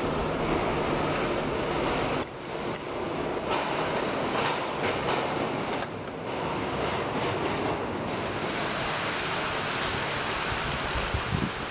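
A steady, loud rushing noise with no clear rhythm or pitch; it dips briefly about two seconds in and turns hissier about eight seconds in.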